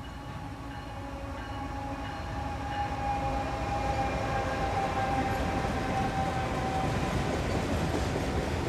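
Diesel-hauled freight train passing close by, a CN locomotive leading and a CSX locomotive second, growing louder over the first few seconds as the engines go past. A steady whine runs through the middle, and the rumble of the autorack cars rolling over the rails follows behind.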